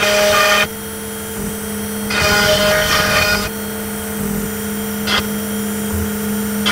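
CNC router spindle engraving lettering into a walnut board: a steady spindle hum, with the noisy rasp of the bit cutting the wood coming and going three times, the longest stretch about a second and a half.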